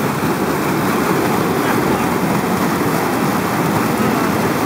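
Steady rush of white water churning below a river weir.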